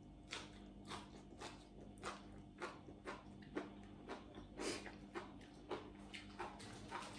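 A person chewing a mouthful of food by mouth, with soft crisp crunches and mouth clicks about once or twice a second, over a faint steady hum.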